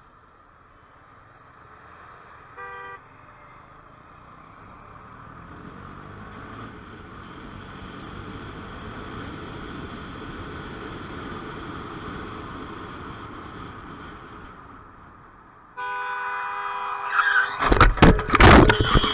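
Road and wind noise of a vehicle moving through city traffic, swelling and then fading, with a short car-horn toot a few seconds in. Near the end a car horn blares steadily and a burst of loud crashing impacts follows: a collision.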